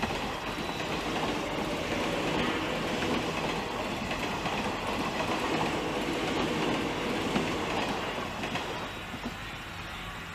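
A train passing close by: a steady rumble with wheel clatter that builds over the first couple of seconds and fades away near the end.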